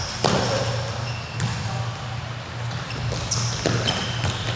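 Basketball bouncing on a hardwood court during play, with several knocks and short high sneaker squeaks over a steady low hum.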